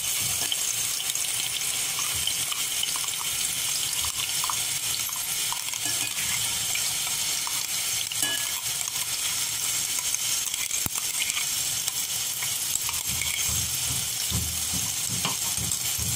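Wet ground coconut-and-coriander masala paste sizzling steadily in hot oil. A spoon scrapes and taps against the steel mixer jar, making scattered light clicks.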